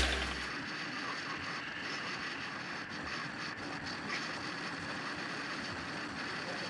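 Steady rush of wind and road noise from a 2004 Honda SilverWing 600 maxi scooter cruising at highway speed, with wind on the microphone.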